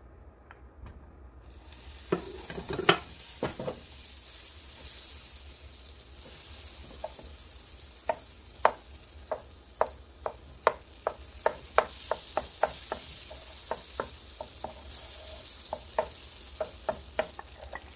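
Butter sizzling in a hot frying pan, the sizzle starting about a second and a half in, with a utensil clicking against the pan again and again, most often in the second half.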